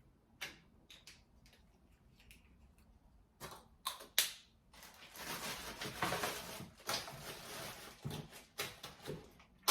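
Light clicks and taps, then a few sharper knocks and several seconds of close rustling, as small objects are handled and put away by hand.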